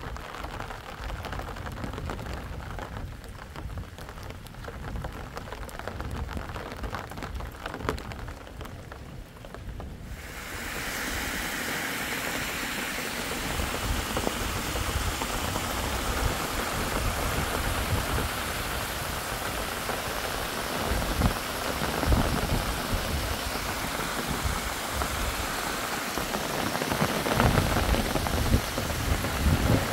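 Steady rain falling on rock. About ten seconds in, the rain hiss suddenly becomes louder and fuller.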